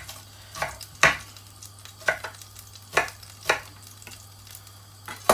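Kitchen knife roughly chopping an onion on a worktop: sharp, irregular knocks of the blade, about eight in five seconds, over a faint steady hum.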